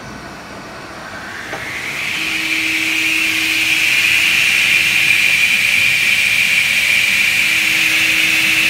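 Edge banding machine's end-trimming saw motor starting up: its whine rises over about two seconds, then runs steadily at full speed.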